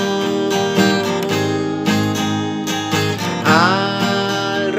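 A song's instrumental gap: strummed acoustic guitar chords, with a gliding melodic line coming in near the end.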